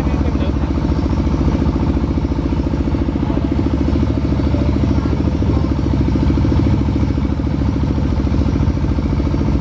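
Tractor engine running steadily as it pulls a passenger trailer along a bumpy dirt road.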